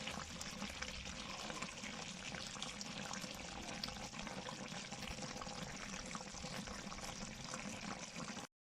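Pine-cone jam boiling in a pot: steady sizzling and bubbling with many small pops. It cuts off abruptly near the end.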